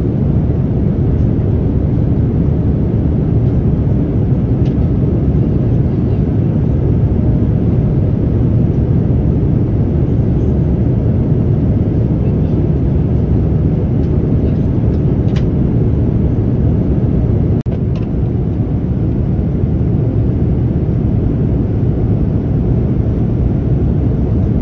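Steady cabin noise of a Boeing 787-9 at cruise, heard from a window seat: the low rumble of its Rolls-Royce Trent 1000 turbofans and the rush of air around the fuselage. The level dips briefly about two-thirds of the way through.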